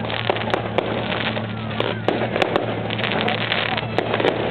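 Fireworks going off in a dense, continuous barrage: a steady crackle with many sharp pops scattered throughout, over a low steady hum.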